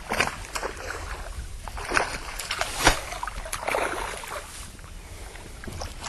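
Irregular splashes and slaps of water at a bass boat's hull, several short bursts a second or so apart, over a low steady rumble.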